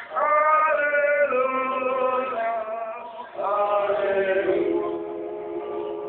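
A hymn sung by men's voices, in long held notes, heard through a television speaker. The singing breaks off briefly about three seconds in, then settles on one steady held chord.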